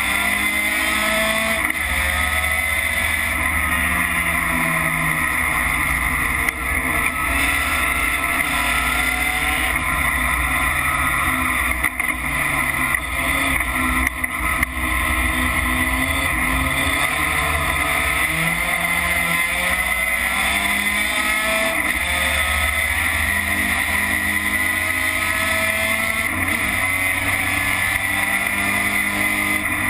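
Racing pickup truck's engine heard from inside the cab at full race pace, its note rising and falling over and over with throttle and gear changes, over a constant hiss of wind and road noise.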